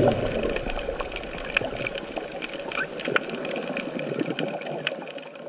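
Underwater ambience picked up by a diving camera in its housing: a steady watery hiss dotted with many short, sharp clicks, slowly getting quieter.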